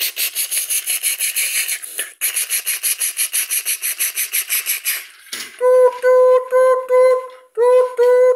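A person imitating a toy train with their mouth: a fast, even chuffing rhythm of about seven beats a second, then a run of short "doot" notes sung at one steady pitch, about three a second.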